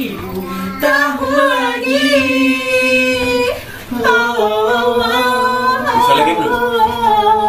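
A group of young people singing together, untrained voices holding long drawn-out notes, with a short break about three and a half seconds in.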